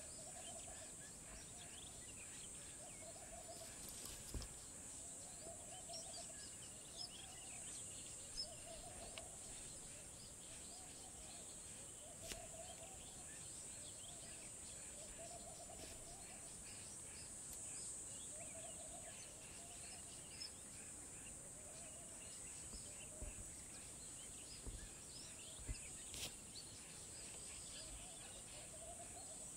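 Faint outdoor ambience: a steady high insect drone, scattered bird chirps, and a soft, short call repeating about every two seconds from an unseen bird.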